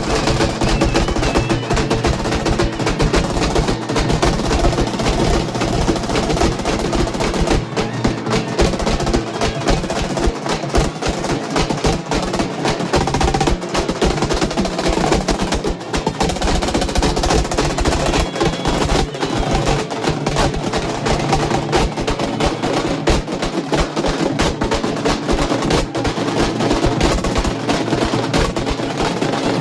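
Halgi frame drums, beaten with sticks by a group, playing fast, dense strokes with no pause.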